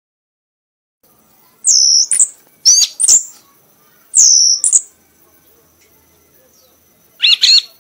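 Kanis merah songbird singing: loud, high-pitched whistled phrases in four short bursts with pauses between, each a dipping whistle followed by a quick second note.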